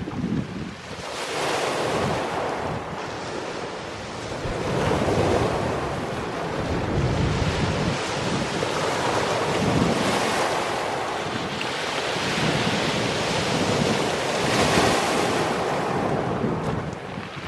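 Small sea waves breaking and washing up a pebble beach, the surf swelling and ebbing every few seconds.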